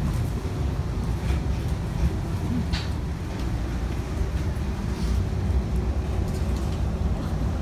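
Steady low rumble inside the cabin of a parked Airbus A320 during boarding, with a few faint, brief higher sounds.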